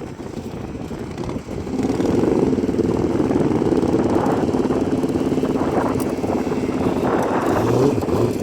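Racing ride-on lawnmower engine running under load; it gets much louder about two seconds in and holds there.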